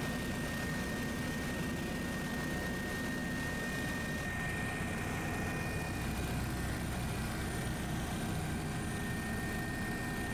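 Helicopter cabin noise: engine and rotor running steadily as a dense low drone, with a steady high-pitched whine over it.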